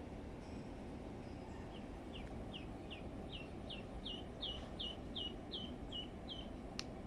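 Duckling on a fishing line as live snakehead bait, peeping: a run of about a dozen short falling peeps, two to three a second, starting about two seconds in. There is one sharp click near the end, over steady low background noise.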